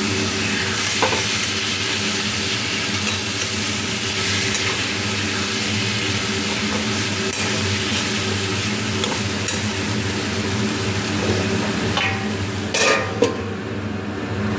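Mushrooms frying in onion-tomato masala in a metal kadai, sizzling as a spatula stirs and scrapes them, over a steady machine hum. Near the end come a few sharp metal clanks as a steel lid goes onto the pan.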